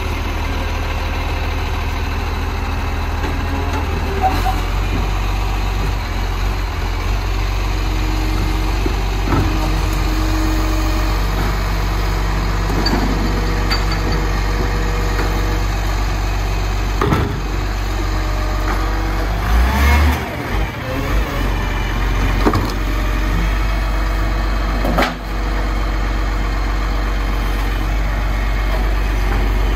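Recycling garbage truck's engine running steadily, with several sharp knocks and clanks in the second half.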